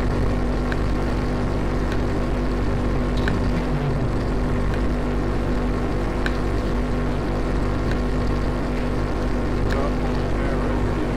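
A double paradiddle played continuously on a drum with wooden sticks: a dense, unbroken stream of strokes with the drum heads ringing at steady pitches. Every second or so a sharper, louder accented stroke stands out.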